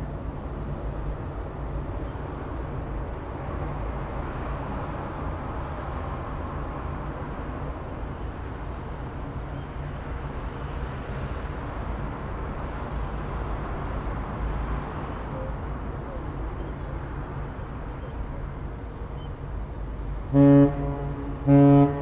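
Ship's engine rumbling steadily with a low hum. Near the end come two short, loud blasts of a ship's horn about a second apart.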